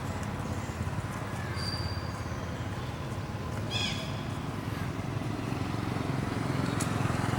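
Steady low outdoor rumble, with a thin high whistle about two seconds in and a short high falling squeal, an animal-like call, about four seconds in.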